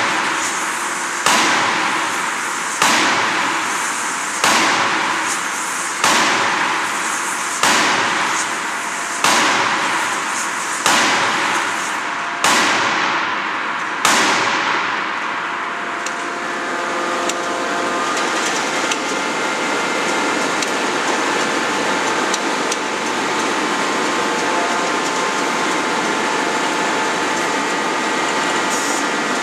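A 16-ton hydraulic closed-die forging hammer strikes a hot billet in a steady series of heavy blows about one and a half seconds apart, each ringing out briefly. The blows stop about fourteen seconds in, leaving a steady machinery noise with a faint whine.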